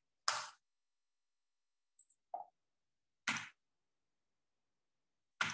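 Computer keyboard keystrokes: three sharp, separate clacks a few seconds apart, with dead silence between them.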